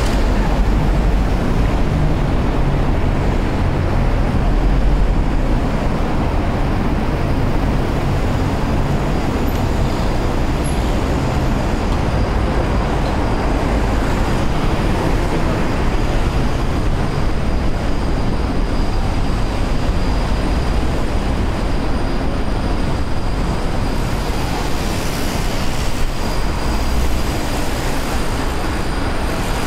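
Steady rumbling noise of a bicycle ride along the road: wind over the microphone and tyres rolling on the pavement, with no distinct events.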